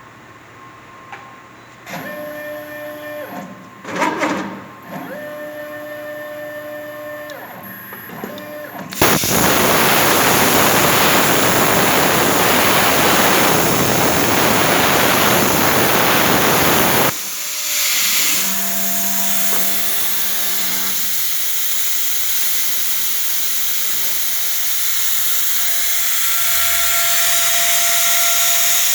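Plasma cutter cutting a hole in 3/8-inch stainless-steel plate: a loud, even hiss starts suddenly about nine seconds in, runs about eight seconds and cuts off. Before and after it, a machine gives steady whining tones that step between pitches.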